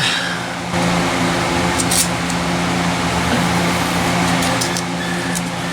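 A steady machine hum fills the garage throughout. Over it come a few light clicks and scratches from parts and small tools being handled.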